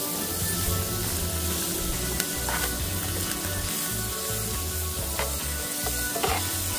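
Vegetables sizzling in hot oil and curry powder in a frying pan, stirred with a metal spoon that clicks against the pan a few times.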